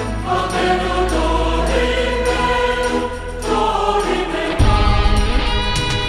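Background music with choir voices holding long notes over a steady bass; about four and a half seconds in, a heavier, louder bass comes in.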